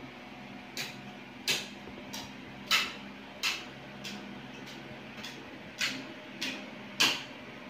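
A series of short, sharp clicks or taps, about ten of them at uneven spacing of roughly two-thirds of a second, over a low steady hum.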